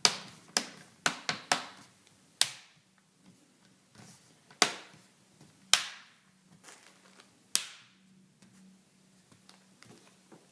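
Plastic clips of a Dell Latitude E5520's screen trim bezel snapping into place as the bezel is pressed around the edges. There are about nine sharp clicks: five in quick succession in the first second and a half, then single snaps a second or two apart.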